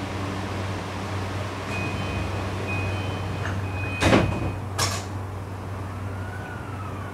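E235-series electric train's sliding doors closing. A high, broken door-closing tone sounds, then the doors shut with a loud thud about four seconds in and a sharp clunk a moment later, which the uploader takes for the door lock engaging. The stationary train's steady low hum runs underneath.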